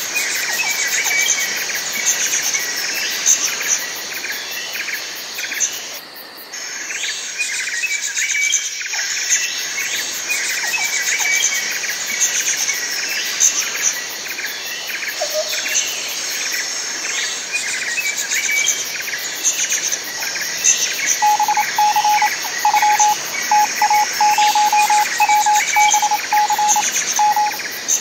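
Nature ambience: many birds chirping and calling over a steady high insect drone. For the last several seconds a lower steady-pitched call repeats in a run of short pulses.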